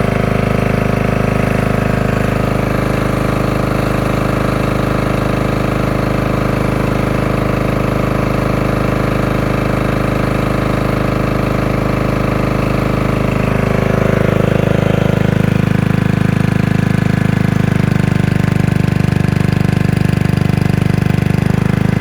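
Portable generator's engine running steadily after months of sitting; about 14 seconds in its note drops slightly and gets a little louder, then comes back up near the end.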